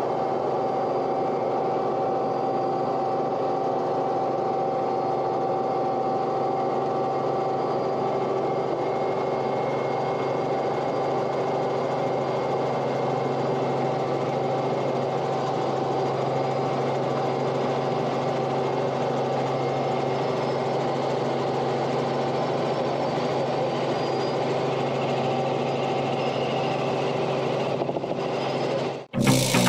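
A steady engine drone with fixed, unchanging tones, cut off sharply near the end as music begins.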